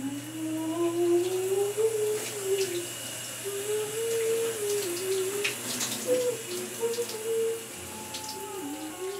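Shower running with a steady hiss of spray while a woman hums a slow, wandering tune.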